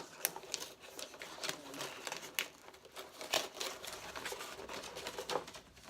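A cardboard box being opened and its contents handled: irregular crinkling of packaging, light clicks and taps.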